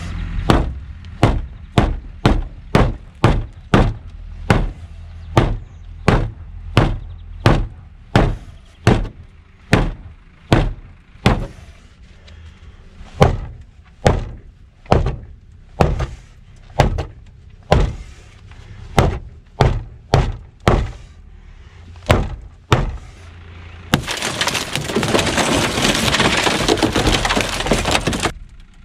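An Ontario SP-53 bolo knife's 5160 carbon-steel blade stabbing through a car's sheet-metal door, about thirty sharp impacts at roughly one a second. Near the end, several seconds of continuous crashing as the car's window glass breaks.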